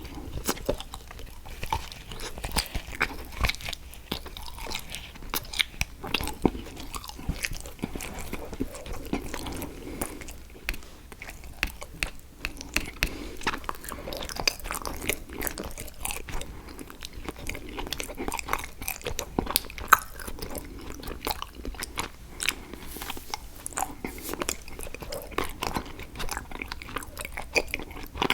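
Close-miked biting and chewing of an edible chocolate picture frame: irregular crisp cracks and crunches, a few each second.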